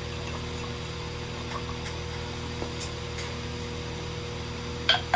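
Steady electrical hum with a faint hiss underneath, broken by a few light ticks and a sharper click near the end.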